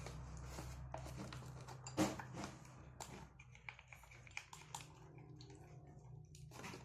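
Slime mixture of clear glue, baking soda and water being stirred in a container as it starts to thicken: a run of faint clicks and taps, with one louder knock about two seconds in.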